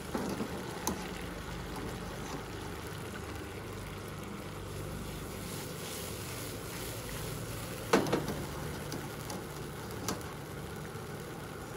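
Metal mesh spider strainer clinking against a pasta pot and frying pan as cooked penne is lifted into the sauce and the pan is tossed. The loudest is a single ringing clank about eight seconds in, heard over a steady low rumble.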